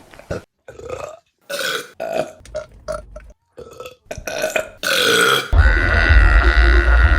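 Women burping: a run of short burps, then a long, loud burp beginning a little over two-thirds of the way in.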